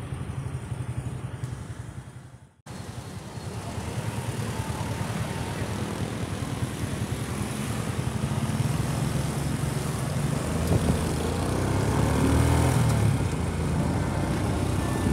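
Motorcycle engine running while riding along a street, with road and traffic noise. The sound cuts out suddenly about two and a half seconds in, then resumes and grows gradually louder.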